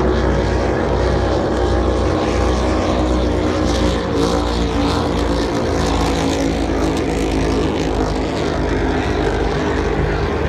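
Racing powerboat engines running at speed out on the water, a steady engine sound made of several tones at once.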